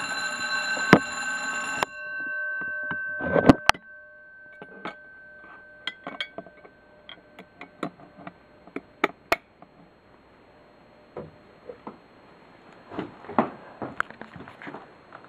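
Edwards Adaptabel vibrating fire alarm bells ringing continuously, cutting off suddenly about two seconds in, with the gongs ringing on and fading for a few seconds. A sharp clatter follows a second or so later, then scattered light clicks and handling noise.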